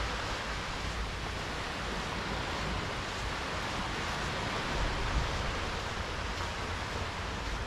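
Small, calm waves washing in over a shallow sandy beach, a steady hiss of surf, with wind rumbling on the microphone underneath.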